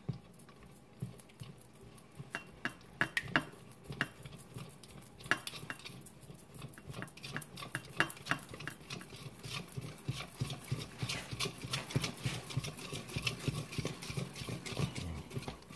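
Wire whisk beating a thick, sticky honey and hot-sauce mixture in a stainless steel bowl, the wires clicking and scraping against the metal. Slow, scattered clicks at first, then a fast, steady ticking from about five seconds in.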